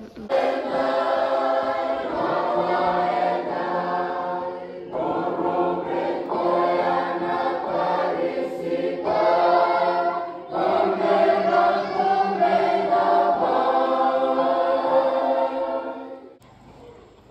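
Church congregation singing a hymn together, many voices held in long sung phrases with brief breaks about five and ten seconds in. The singing stops about a second before the end.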